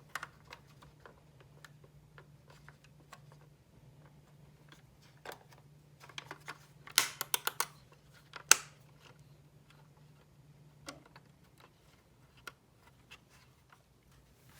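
Light clicks and taps of small model-car parts and tools being handled on a work surface, with a quick run of sharper clicks about seven seconds in and one loud click a second later. A faint steady hum runs underneath.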